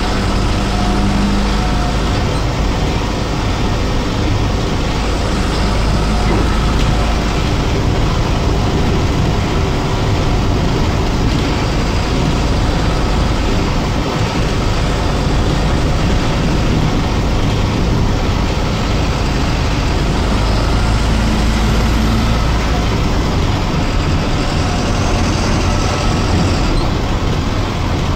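BMC 1100FE single-decker bus heard from inside the cabin while driving: steady diesel engine running with road and body noise.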